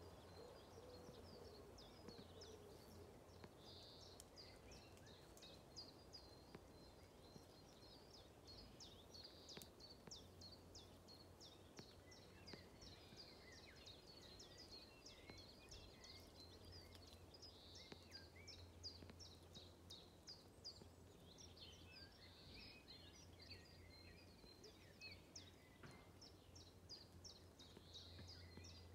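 Faint outdoor ambience with distant birds chirping: a high, rapidly repeated chirp runs throughout, with scattered other calls over it.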